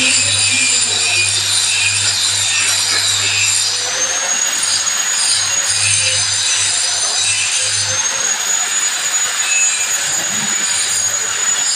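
Hand saw cutting a workpiece at the bench, with steady repeated back-and-forth strokes that rasp and squeal.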